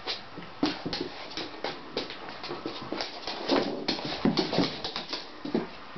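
Two setters, a red Irish setter and a black-and-tan Gordon setter, play-wrestling: scuffling and irregular clicks and knocks of paws on the floor, with short dog vocal sounds, the loudest between about three and a half and four and a half seconds in.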